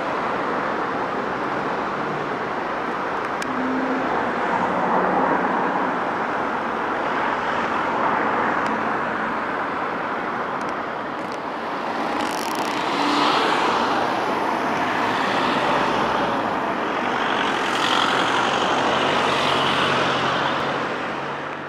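Road traffic on a town street: a steady wash of car and engine noise that swells and eases as vehicles pass, fading out at the very end.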